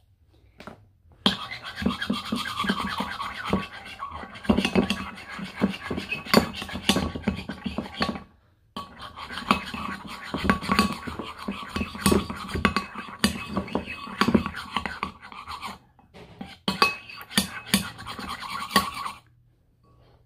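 Slime being stirred and squished with a metal spoon in a bowl: a dense run of wet clicks and crackles in three stretches, broken by short pauses about 8 and 16 seconds in.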